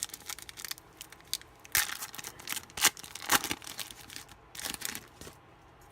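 A trading-card pack's wrapper being torn open and crinkled by hand: a run of irregular rustles and crackles with a few louder tears, dying away about five seconds in.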